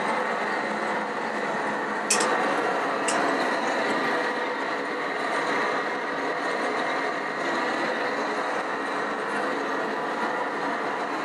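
Handheld gas torch burning with a steady hiss while it heats a Ford Model T engine block for a babbitt front main bearing pour. Two sharp clicks come about two and three seconds in.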